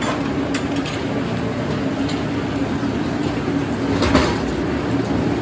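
Sawmill machinery running steadily with a hum and scattered clicks, and a louder clatter about four seconds in as a sawn oak board drops off the carriage onto the belt conveyor.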